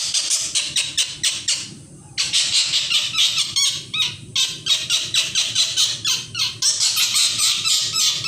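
Small kingfisher giving rapid, shrill, repeated squealing calls, about six or seven a second with a short break about two seconds in: distress calls from a bird being held.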